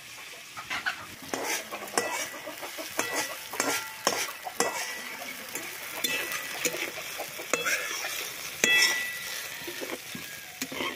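Food sizzling in hot oil in an iron wok while a metal spatula stirs it, scraping and knocking against the pan. Many sharp strokes, several ringing briefly, over a steady sizzle; the loudest knock comes near the end.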